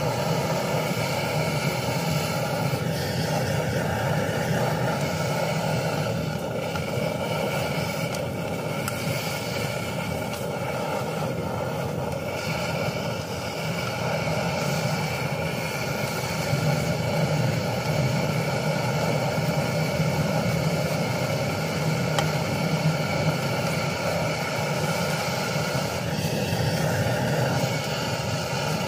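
Steady roar of a portable gas camping stove burning under a wok, with stir-fried shrimp and peppers sizzling as a spatula stirs them.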